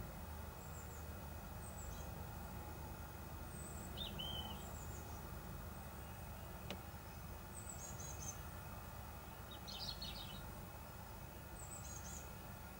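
Quiet rural background with a steady low rumble and scattered short bird chirps. There is a single sharp click about seven seconds in.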